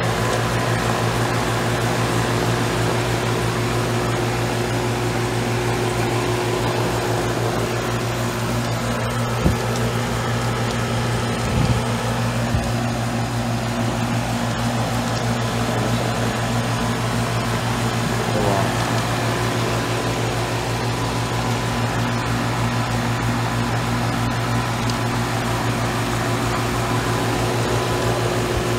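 2001 Carrier 38CKC 2.5-ton central air conditioner running steadily: its Bristol reciprocating compressor hums under the whir of the condenser fan. A couple of brief knocks come about a third of the way in.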